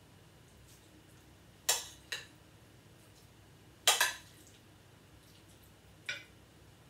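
Metal spoon clinking against a ceramic serving dish and plate as risotto is spooned out: five sharp clinks, in two quick pairs and a last one near the end.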